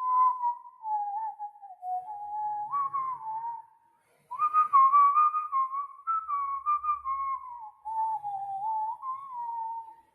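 A person whistling a Tamil film-song melody by mouth: one pure tone moving from note to note in phrases, with a short break about four seconds in.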